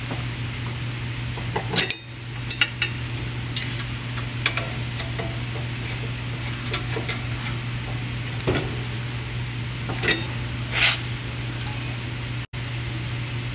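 Steel beam extender and stop plate being handled and fitted by hand: a scatter of sharp metallic clinks and knocks, loudest about two seconds in and again near eleven seconds. A steady low hum runs underneath.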